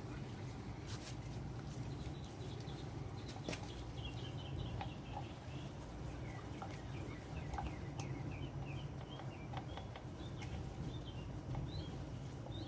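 A small bird chirping a quick string of short, high notes for most of the stretch, over a steady low hum and a few faint clicks.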